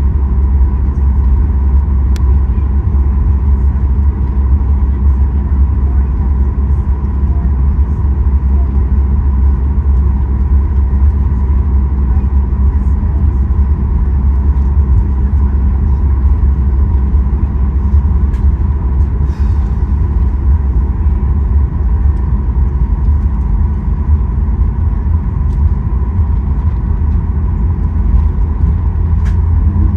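Cabin noise of a Boeing 737 MAX 8 taxiing: the CFM LEAP-1B engines run at low taxi power with a steady low rumble and a faint steady whine, and a few light ticks sound from the cabin.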